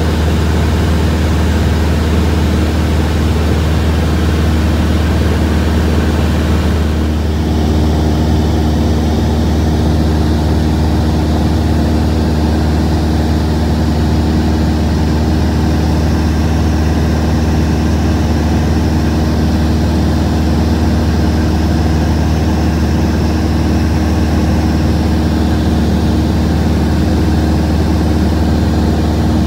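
Cessna 172's piston engine and propeller droning steadily in flight, heard from inside the cabin with a strong low hum and an airflow hiss. The hiss eases slightly about seven seconds in.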